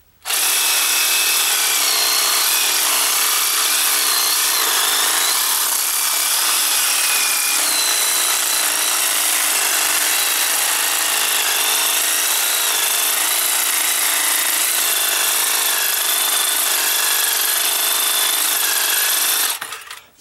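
Reciprocating saw (Sawzall) cutting into a steel foundation bolt, scoring it partway through. It runs steadily with a wavering high metallic squeal, starts just after the beginning and stops near the end.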